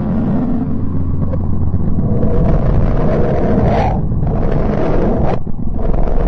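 Sonified space recording: a loud, deep, steady rumble with patches of hiss that cut in and out abruptly, each lasting about a second or so.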